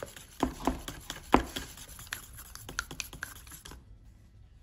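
A stirring stick mixing crosslinker hardener into red vinyl paint in a plastic cup, tapping and scraping against the cup's wall in irregular clicks. Three louder knocks come in the first second and a half, then lighter ticks that die away near the end.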